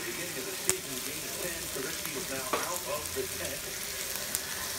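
Cubed beef sizzling on a hot flat griddle plate, a steady frying hiss, with a sharp click near the start and another near the end.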